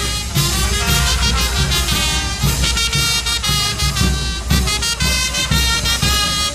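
Lively music with a steady drum beat and many pitched notes.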